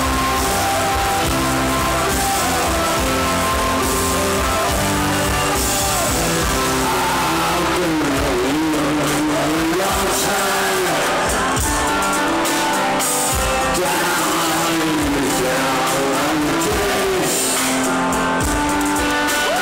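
A live rock band plays a slow ballad, heard loud from the audience through the PA. Drums, guitars and keyboard carry the song, and a wavering melody line runs over the band in the second half.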